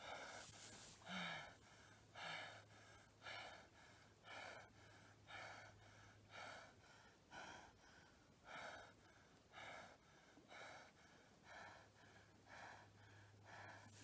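Faint footsteps of a person in waders on dry grass and mud at the pond's edge: short swishing steps at an even pace, about one a second.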